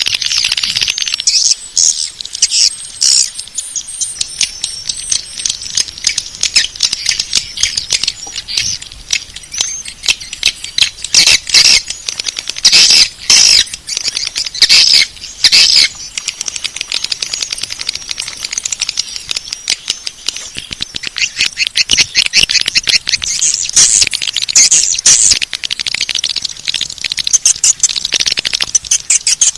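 Edible-nest swiftlet lure call: a dense, rapid stream of twittering chirps and clicks, with a run of louder chirp bursts about halfway through.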